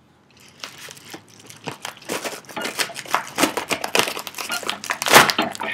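A package being opened with a knife: irregular crinkling, scraping and snapping of the packaging, loudest near the end.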